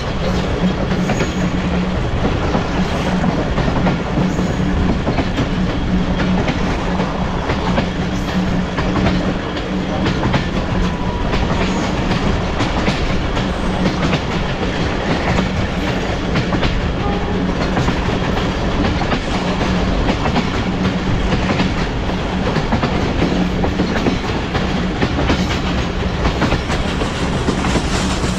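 Passenger train running, heard from on board. The coaches' wheels rumble steadily on the rails with many small clicks and a low hum throughout.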